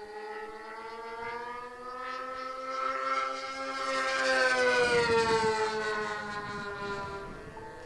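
The two OS 46AX two-stroke glow engines of a Double Vision twin-engine RC racer running at high revs as it makes a fast pass. The whine climbs slowly in pitch as the plane approaches, is loudest about five seconds in, then drops sharply in pitch and fades as it goes away.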